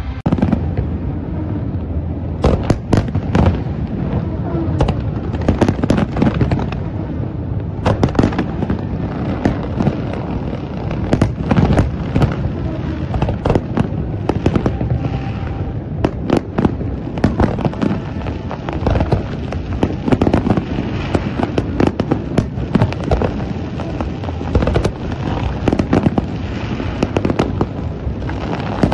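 Fireworks display: many sharp bangs of bursting aerial shells in close succession, over a continuous low rumble of explosions.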